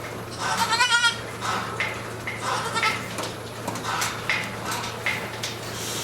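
Newborn goat kid bleating: one quavering, high-pitched cry about a second in, followed by several short, fainter sounds.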